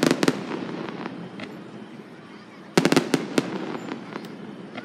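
Aerial fireworks shells bursting: a quick cluster of sharp bangs at the start, then another cluster of bangs about three seconds in.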